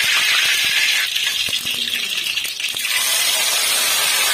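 Hot mustard oil sizzling in a metal kadai, with a few clicks in the middle as yogurt-marinated mutton is tipped in. From about three seconds in, the meat frying in the oil gives a louder, fuller sizzle.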